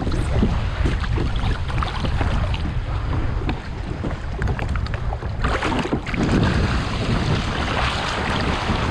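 Gentle sea waves washing, with a louder surge of water about five and a half seconds in. Wind rumbles on the microphone throughout.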